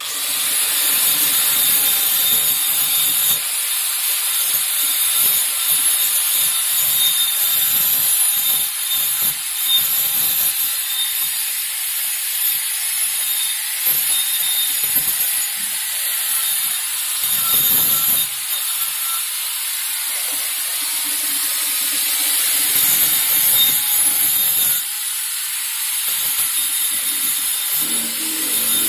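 Shielded metal arc welding on carbon steel pipe: the arc gives a steady, crackling, frying hiss with scattered pops, starting abruptly as the arc strikes, while a weld pass is laid.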